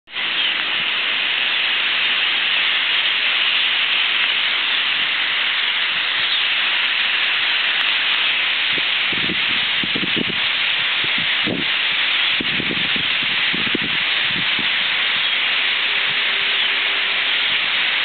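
Massed chatter of thousands of roosting European starlings, a steady dense hiss of many overlapping calls, with some low bumps between about nine and fourteen seconds in.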